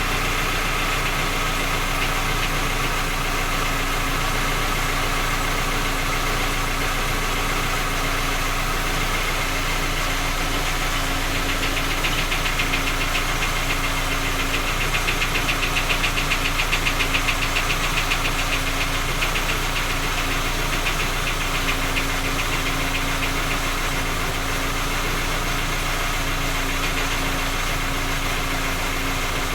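Skoda Octavia's 1.6 MPI four-cylinder petrol engine running with a rapid metallic knock. The knock grows louder from about twelve seconds in, then eases back. It is the cold-engine knock whose cause three engine repairs have not found.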